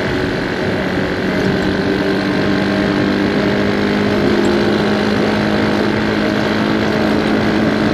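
Motorcycle engine running at a steady pitch while riding, over a steady rush of wind and road noise.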